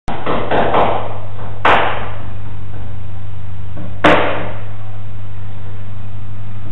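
Steady low hum with a few sharp knocks: several small ones in the first second, one just under two seconds in, and the loudest about four seconds in.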